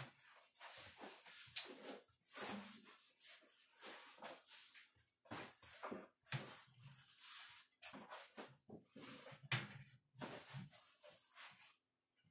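Black stove pipe sections being handled and fitted onto a wood stove's flue collar: irregular faint scraping and light metal knocks as the pipe is slid and seated.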